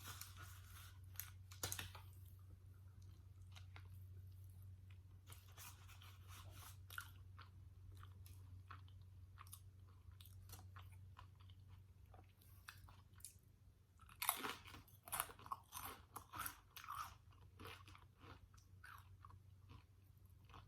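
Close-miked chewing and crunching of Doritos tortilla chips with queso, crisp crackles scattered throughout, with the loudest, densest burst of crunching about fourteen seconds in. A steady low hum sits underneath.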